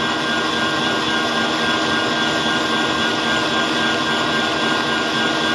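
Electric stand mixer running steadily, its balloon whisk beating eggs and sugar in a stainless steel bowl: a constant motor whine over an even whirr. The mixture is whipped to the foamy stage, nearly doubled in volume.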